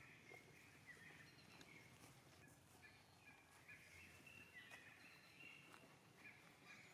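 Near silence, with many faint, short, high-pitched chirping calls from an animal at irregular intervals.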